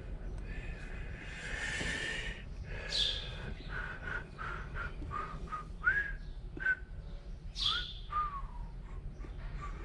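Birds calling: short chirps and whistles with sharp, downward-sweeping squawks recurring every few seconds, over a steady low rumble. A brief rustling noise comes about a second in.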